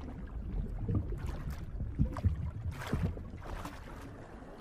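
Water sloshing and swishing: a low rumble with several soft swishes about a second apart, growing quieter near the end.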